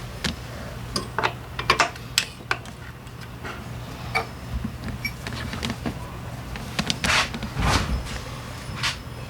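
Hand work on a scooter's starter drive: small metal parts and tools clicking and knocking at irregular intervals over a steady low hum, with two short scraping sounds a little past two-thirds of the way through.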